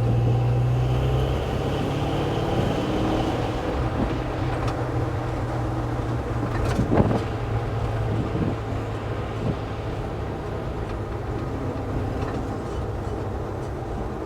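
Cab interior sound of a 1966 Chevy C10 driving, its 383 stroker V8 running under road noise. About a second in the engine note changes and then climbs, and a brief thump comes about seven seconds in.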